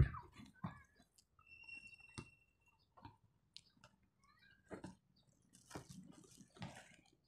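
Someone chewing food close to the microphone: scattered soft crunches and clicks. A brief high steady tone sounds about one and a half seconds in.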